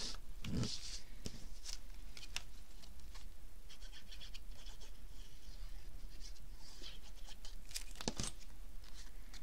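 Paper and cardstock being handled and pressed down on a tabletop: soft rustles and light scrapes with a few small clicks, and a sharper knock about eight seconds in.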